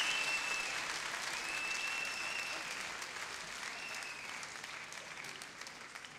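Concert audience applauding between songs, with several long whistles from the crowd; the applause dies away gradually.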